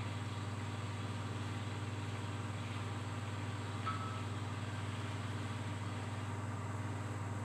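A steady low mechanical hum, with a single short click about four seconds in.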